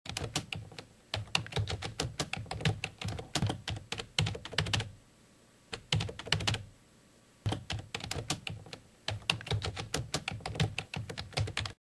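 Typing sound effect: rapid keystrokes on a computer keyboard clattering in quick runs, with two short breaks about five and seven seconds in, then cutting off abruptly near the end.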